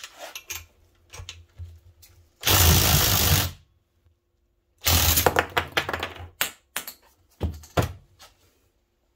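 Cordless impact wrench hammering on a gear puller's forcing screw in two bursts of about a second each, to push a bearing out of a snowmobile skid idler wheel. A few sharp metallic clicks follow the second burst.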